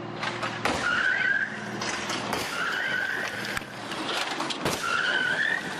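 Crash-test car moving along the test track under tow: a car running, with three high, wavering squeals and a few sharp knocks.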